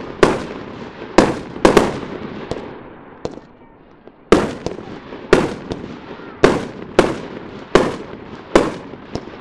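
Aerial firework shells bursting overhead: about ten sharp bangs, roughly one a second, each trailing off, with a lull of about a second and a half near the middle.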